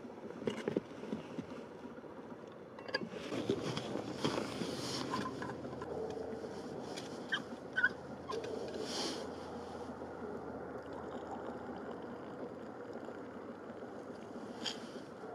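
Stanley steel vacuum flask opened by hand, the cup and stopper unscrewed with scattered clicks, short squeaks and scraping, over a steady background hiss.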